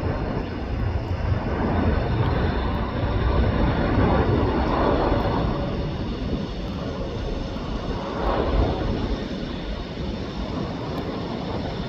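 Jet airliner engines running as the aircraft passes, a steady rushing noise that is loudest about four to five seconds in and then slowly eases off.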